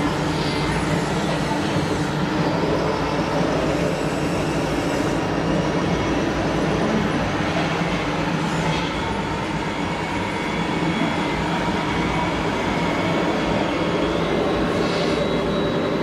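Radio-controlled model trucks working: a steady mechanical drone with several whining tones from the electric motors and gearboxes. A few short high hisses come in about half a second, nine seconds and fifteen seconds in.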